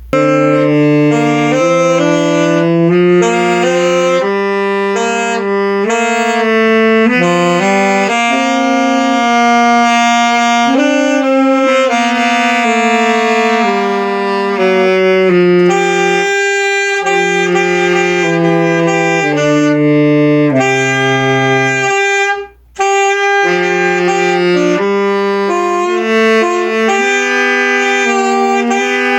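Saxophone playing a slow melody of held notes over a backing track with bass and chords, with a brief break about twenty-two seconds in.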